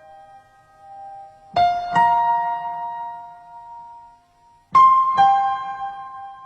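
Slow piano music: two pairs of single notes struck about three seconds apart, each left to ring and die away.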